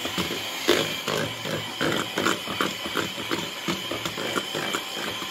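Hand-held electric mixer running, its whisk beaters clattering and knocking irregularly against the bowl as they beat a thick mascarpone and egg-yolk cream.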